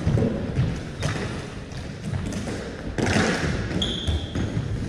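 Knocks and thuds of a stick-and-ball game in an echoing sports hall: running footsteps, sticks and the ball striking the floor. A brief high squeak comes near the end.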